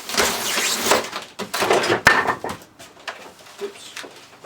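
Cardboard packaging being handled and folded: a loud rustle and scrape of cardboard, then shorter rustles with a sharp click about two seconds in.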